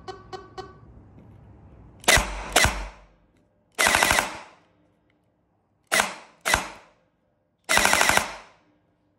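Gel blaster gearbox with a Kestrel V3 Basic trigger unit firing. It fires two single shots, then a short rapid burst, then two more singles and another short burst, showing the semi and auto settings.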